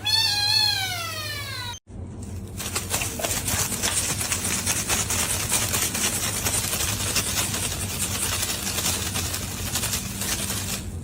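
A cat's long meow that rises and then falls in pitch, cut off abruptly after about two seconds. It gives way to a dense, crackly rustling noise full of small clicks.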